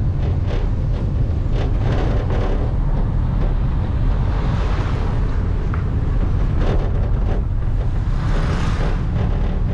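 Wind buffeting the microphone: a loud, steady low rumble with short hissy gusts, the strongest a little after the middle and near the end.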